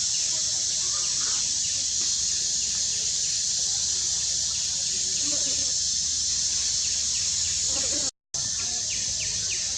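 Outdoor wildlife ambience: a steady high insect drone with many short, repeated bird chirps over it and a few faint lower calls. The sound cuts out completely for a moment about eight seconds in.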